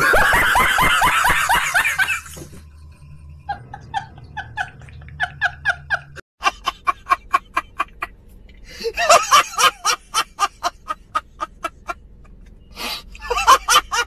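Men laughing hard in long runs of rapid ha-ha pulses, about three a second, after a loud outburst of laughter at the start. There is a short break about six seconds in, and another loud burst of laughter near the end.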